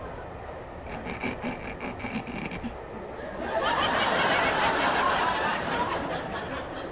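Studio audience laughter, scattered chuckles at first and then a fuller wave of laughing from about three seconds in, over the steady rumble of a moving railway carriage.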